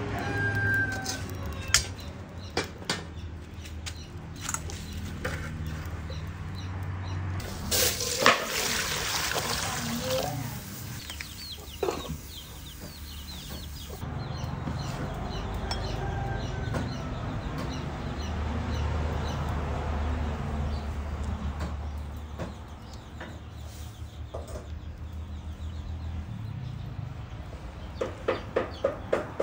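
Chickens clucking over a steady low hum, with scattered sharp clicks and knocks. Near the end comes a quick run of clucks.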